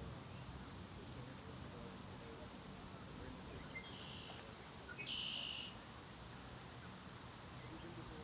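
Two short, high-pitched bird calls: a faint one about four seconds in and a louder, slightly longer one about a second later, over steady low outdoor background noise.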